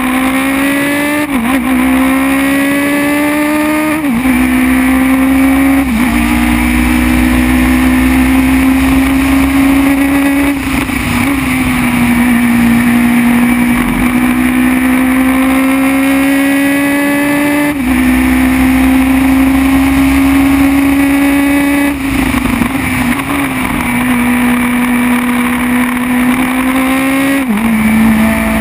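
Formula BMW single-seater's 1.2-litre BMW motorcycle four-cylinder engine at high revs under power, heard onboard, its note climbing through the gears with three quick upshifts in the first six seconds. It then holds high down the straights, with a few more gear changes later that briefly break the note, over a low rush of wind and rumble.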